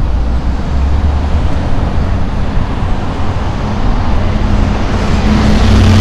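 Road traffic noise from passing cars, with a city bus's engine hum growing louder near the end as the bus comes past close by.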